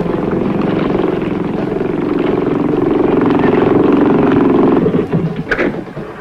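Outboard motors of small river assault boats running at speed, a loud steady engine drone that falls away about five seconds in. A short sharp noise follows about half a second later.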